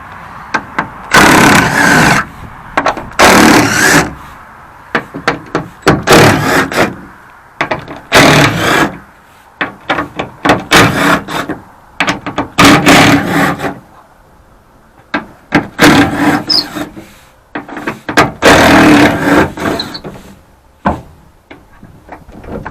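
T30 Torx bolts on a pickup tailgate's camera cover being worked loose with a tool: eight or so loud, irregular bursts of tool and metal noise, each a second or so long, with quieter gaps between.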